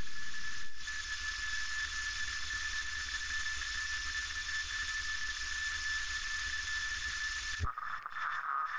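A steady hiss with a high, steady whistling tone over the low drone of a light airplane's cockpit, cutting off suddenly near the end.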